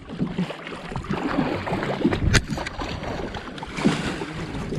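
Water splashing and knocking around a kayak, irregular and unsteady, with one sharp knock about two and a half seconds in.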